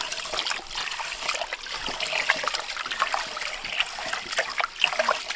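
Water trickling and splashing in many small, irregular drips and splashes.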